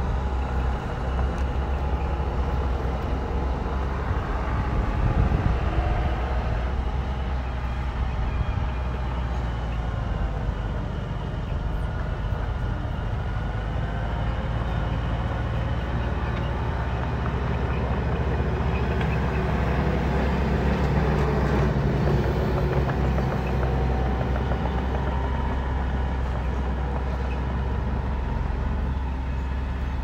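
Diesel engines of a mini bulldozer and dump trucks working: a steady low rumble, with the engine note rising and falling now and then.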